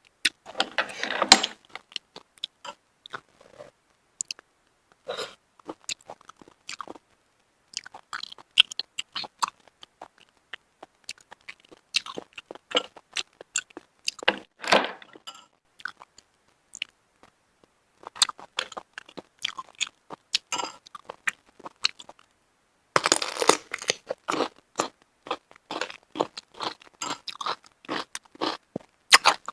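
A person chewing crunchy steamed shellfish close to the microphone: many sharp wet clicks, with louder noisy bursts about a second in, around the middle and about two-thirds of the way through.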